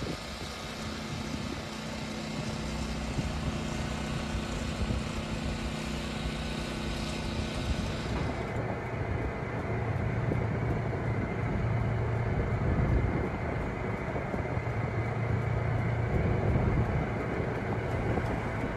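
Steady low rumble of a motor vehicle driving. About eight seconds in, the higher hiss drops away and the low rumble grows louder.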